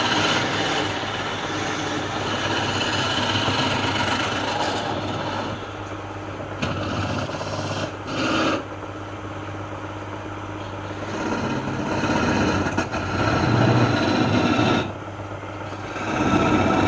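A woodworking power tool's motor running with a steady low hum while it rasps and scrapes against wood. The rasping swells and eases several times, with brief lulls.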